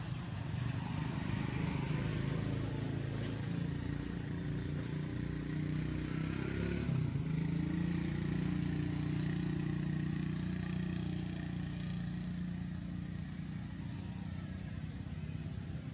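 Motor vehicle engine running steadily, its pitch shifting about seven seconds in and the sound easing slightly near the end.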